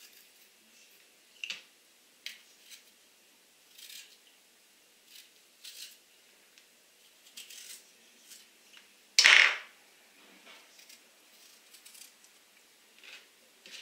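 Radish being shaved into thin slices with a potato peeler over a plastic cutting board: scattered small clicks and scrapes, with one much louder knock about nine seconds in.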